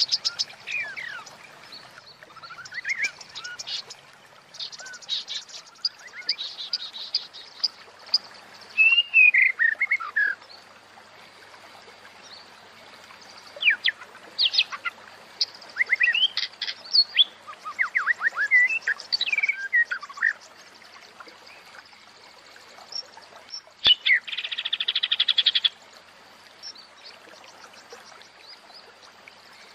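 White-rumped shama, given as a female, calling in repeated bursts of short slurred whistles and chirps mixed with fast buzzy rattling trills, the longest rattle lasting about two seconds near the end. This is the female's call used to bring male shamas into breeding condition (birahi) and get them singing.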